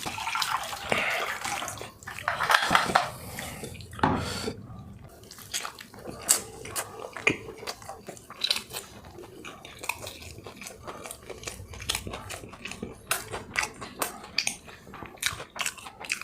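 A person eating: a bite followed by chewing with wet mouth clicks and smacks, busier in the first few seconds and then a scatter of short clicks.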